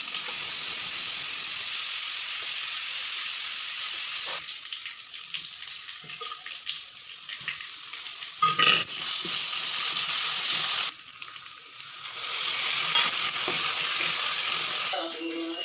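Kitchen tap running in a steady hiss, stopping abruptly about four seconds in and starting again about twelve seconds in. Between the two runs come light clatter and a sharp knock, as of peas and a vessel being handled.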